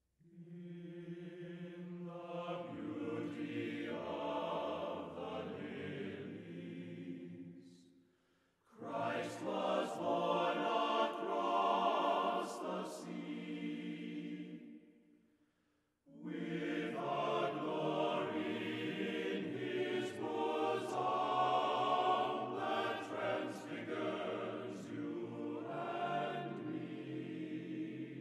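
Background music of sustained choir-like singing, in three long phrases that fade out briefly about eight and sixteen seconds in.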